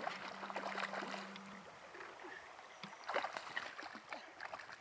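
Stream water babbling and splashing over a gravel bed, in irregular small gurgles.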